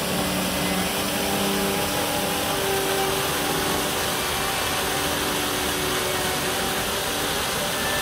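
Small waterfall splashing over stone ledges into a pool: a steady, even rush of falling water.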